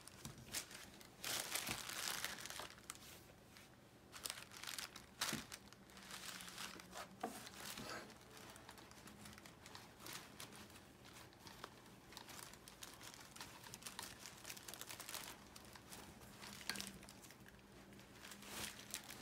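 Stiff fabric drawstring gift bag rustling and crinkling in irregular bursts as hands untie its ribbon and open it.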